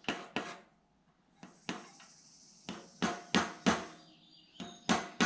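A small mallet tapping a flat Allen wrench to drive a sand seal into a VW air-cooled engine case: about ten sharp taps at uneven intervals. The taps seat the seal fully in its bore.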